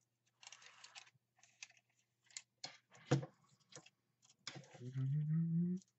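Steel tape measure being pulled out and handled: rustling, short scrapes and clicks, with one sharp click about three seconds in. Near the end comes a low hum about a second long, rising slightly in pitch.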